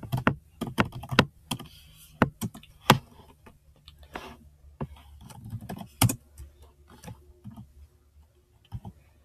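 Typing on a computer keyboard: irregular keystroke clicks, quick at first and then sparser with short pauses.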